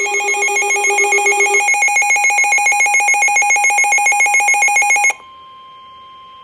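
Electronic weather-alert tones: a loud ringing alarm beeping rapidly, about eight pulses a second, for about five seconds, then cutting suddenly to a quieter steady single tone near 1 kHz, the NOAA Weather Radio 1050 Hz warning tone that signals an alert broadcast.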